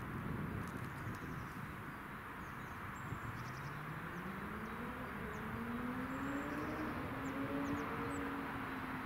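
An approaching train's engine drone, rising in pitch from about three seconds in and then holding steady, with birds chirping.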